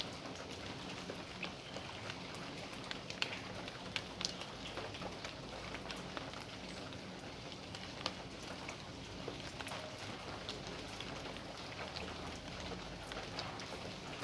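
Steady rain falling in a backyard, a constant hiss dotted with individual drops tapping close by, a few of them sharper and louder.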